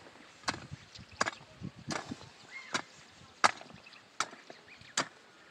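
Hand hoe blade striking dry ground in a steady rhythm, about seven chopping blows, one every three-quarters of a second or so, as weeds and soil are hacked loose.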